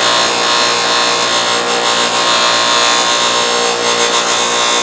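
Bench grinder running with a metal brake caliper piston held against its spinning wheel. A steady grinding hiss sits over the motor's hum as pitting is cleaned off the piston.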